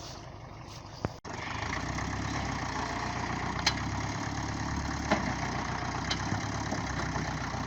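Engine of a work vehicle running steadily at idle. It is quieter at first, then louder after a sharp click about a second in, with a few short clicks over it.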